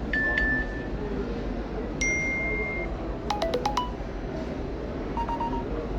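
iPhone 13 loudspeaker playing short alert and notification tones one after another: a beep at the start, a longer, higher beep about two seconds in, a quick run of four or five plucky notes a little past three seconds, and a short, lower beep near the end, over a steady background hum.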